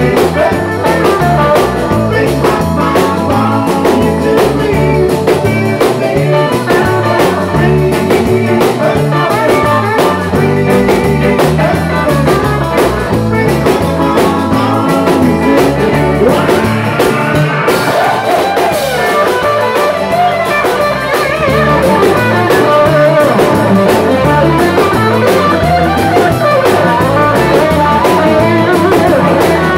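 Live rock band with electric guitars, bass guitar and drum kit playing an upbeat song, with sung vocals over the first half. In the second half the singing stops and a lead electric guitar plays bending lines as the band gets a little louder.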